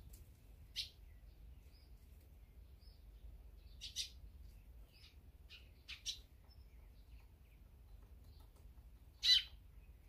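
Small songbirds chirping: short, separate calls scattered over several seconds, the loudest a little before the end.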